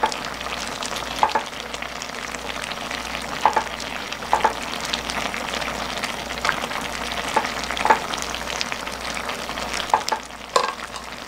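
Braised chicken and vegetables sizzling and bubbling in a shallow pan, with scattered clicks of metal tongs against the pan as the potatoes are turned gently.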